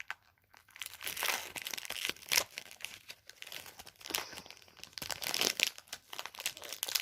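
Foil wrapper of a football trading card pack crinkling in the hands, in irregular rustling bursts.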